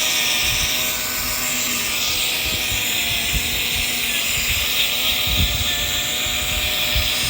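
Cordless drill running steadily with a sanding pad against a plastic headlight lens: an even motor whine with a scratchy hiss over it. Gusts of wind buffet the microphone.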